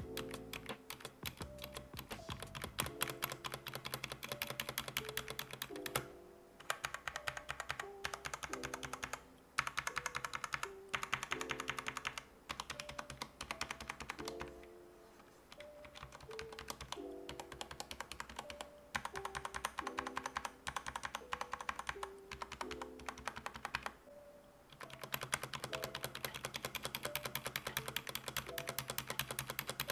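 Fast typing on a Redragon Fizz K617 60% mechanical keyboard with ABS double-shot keycaps and switches that have no click, called very quiet. Runs of rapid keystrokes are broken by a few short pauses.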